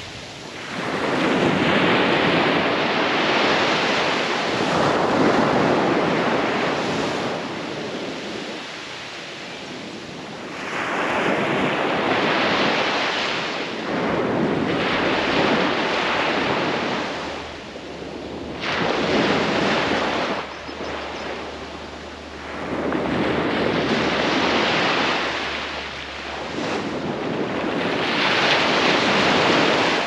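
Gentle surf on a sandy beach: small waves breaking and washing up the shore, the rush of water swelling and ebbing about six times, every few seconds.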